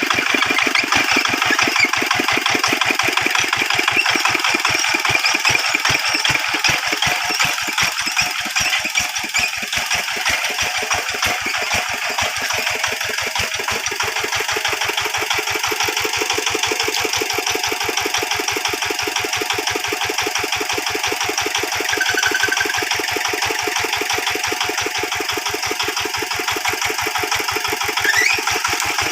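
Hand tractor's engine running with a steady, fast knocking beat.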